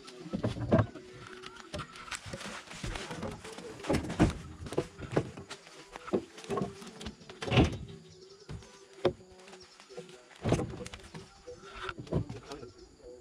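Peeled acacia logs knocking and thudding as they are thrown up onto a truck and stacked on the load: a string of irregular wooden knocks, the loudest about seven and a half and ten and a half seconds in.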